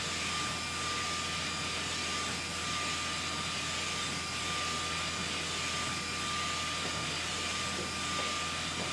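SK UV6145 UV flatbed inkjet printer running: a steady whirring hiss of fans and air with a constant high tone and a low hum.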